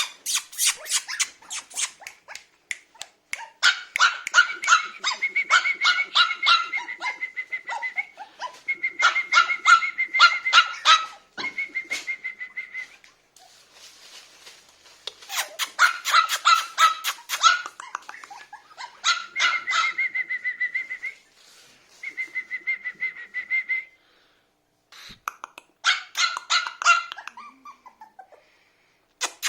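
Biewer terrier puppy yapping in rapid high-pitched barks, in bursts with short pauses between them.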